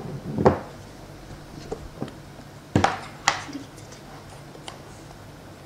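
Plastic clatter of a plastic spoon, lid and container being handled while scooping salt: a sharp knock about half a second in, two more close together near three seconds, and a few light ticks between.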